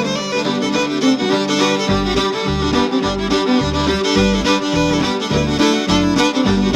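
Instrumental background music with a fiddle lead. A pulsing bass comes in about two seconds in and beats roughly twice a second.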